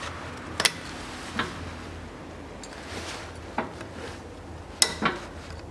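About five sharp metallic clicks as circlip pliers work a steel circlip into its groove in the front steering knuckle, seating the rear retaining ring behind a freshly pressed-in wheel bearing; the loudest clicks come near the end.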